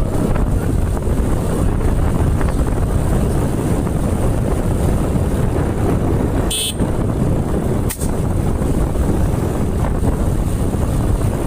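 Wind rushing over the microphone of a moving motorbike, mixed with the bike running: a steady, loud rush. About two-thirds through, a brief high-pitched tone sounds, and a sharp click follows about a second later.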